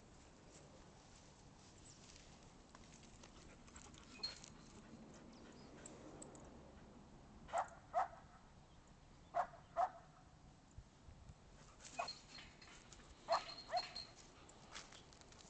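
A dog giving short, sharp yips, mostly in pairs about half a second apart, starting about halfway through.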